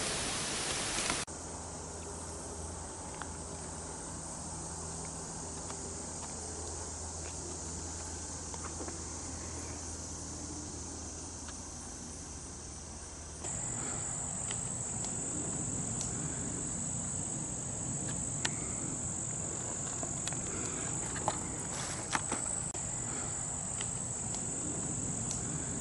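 Steady, high-pitched chorus of insects in summer marsh and woodland vegetation, growing louder about halfway through. A rushing noise cuts off about a second in, and a few faint clicks come through.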